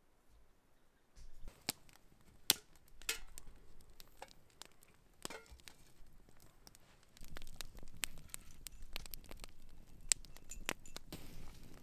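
Small wood campfire crackling, with sharp irregular pops and snaps starting about a second in, over a low rumble.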